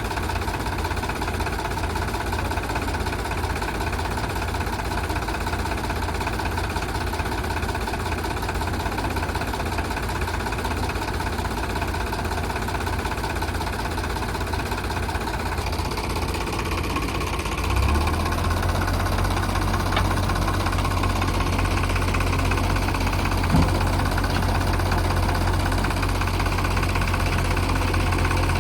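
Heavy diesel engine of earth-moving machinery running steadily. About two-thirds of the way in it turns deeper and louder as it takes load, and a single short knock comes a few seconds later.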